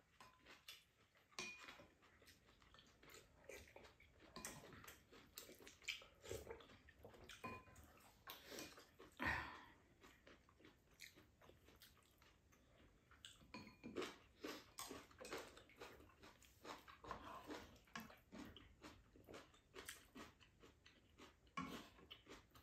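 Faint eating sounds: two people chewing, with chopsticks and spoons clicking irregularly against bowls and a pan, and one louder knock about nine seconds in.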